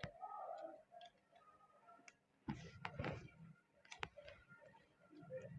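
Light clicks and knocks of a small Bluetooth speaker's plate being handled and pressed back into place, with a cluster of knocks about two and a half seconds in and a sharp click about four seconds in.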